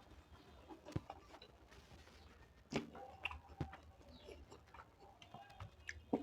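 Someone chewing a mouthful of dal and rice, quiet wet chewing with a few sharp mouth clicks and smacks scattered through it.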